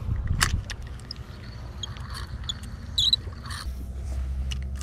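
Spinning reel cranked during a lure retrieve: a thin faint whine with light ticks over a low rumble. A low steady drone comes in past the midpoint.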